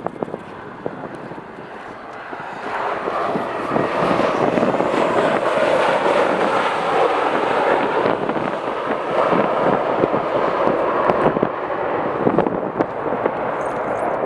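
Jet airliner engines, growing louder about three seconds in and then staying loud, with gusty wind buffeting the microphone.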